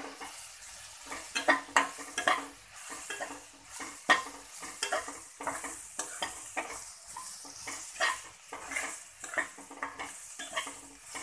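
Metal spatula scraping and stirring an onion-tomato masala around a metal pan in repeated irregular strokes, with a steady sizzle of the spices frying in oil underneath. This is the stage where the dry spices are sautéed into the onion and tomato.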